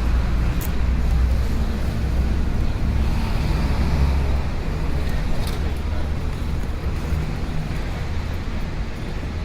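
Street ambience: a steady low rumble of road traffic, with indistinct voices mixed in and a couple of brief sharp ticks.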